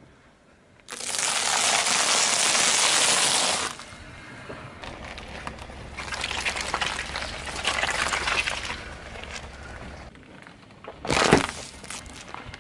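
Car tyre rolling onto and crushing one object after another. First a dense crunching of popcorn for about three seconds, then uneven wet squishing and crackling of slabs of jelly over a low rumble, then a single sharp crack near the end.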